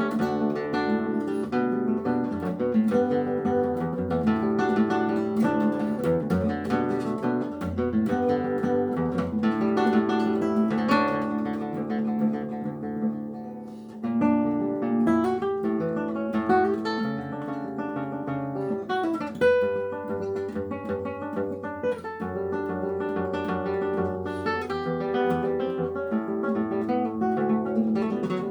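Solo classical guitar playing a fingerpicked piece of plucked melody and chords. It dies down briefly about halfway through, then comes back in.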